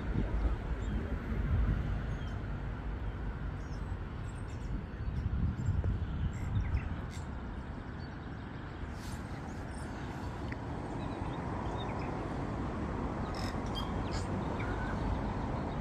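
Birds calling now and then over a steady outdoor rush, with wind rumbling on the microphone that eases after the first few seconds.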